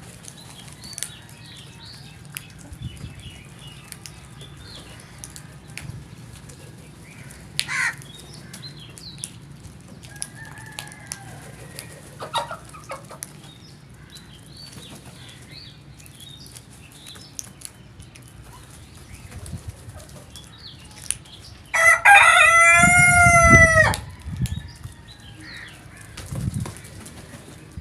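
Scattered short bird calls, then one loud drawn-out rooster crow of about two seconds, a little over twenty seconds in.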